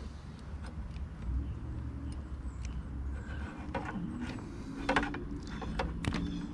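Sharp metallic clicks and snaps from a hand wire stripper as it grips and strips a wire end, about half a dozen irregular clicks, with a low steady rumble underneath.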